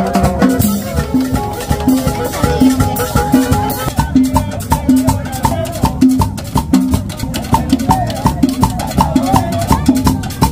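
Upbeat dance music with percussion and a steady beat of about two strokes a second.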